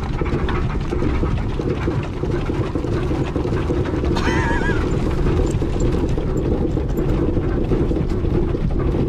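Steady low rumble of a boat trailer being towed along a paved road behind a pickup truck, its crusty trailer wheel running with the tyre down to the rim. A brief wavering higher sound rises over it about four seconds in.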